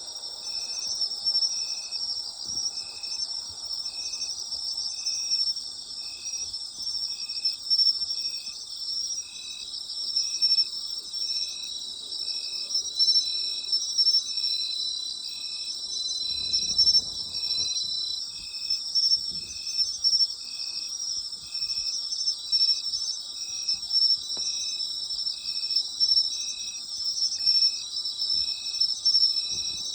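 Autumn night chorus of crickets and other singing insects, a dense steady high trill, with one insect calling in short notes at an even rhythm of about one a second. A faint low rumble passes about halfway through.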